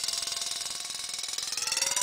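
Wind-up mechanical alarm bell ringing continuously under water, its rapid clapper strikes running together into a muffled ring. Near the end the tone rises in pitch and grows louder as the bell is lifted toward the surface.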